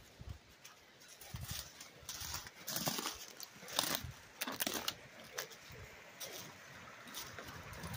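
Footsteps crunching through dry twigs and forest-floor litter, uneven, about one step a second, with small snaps between them.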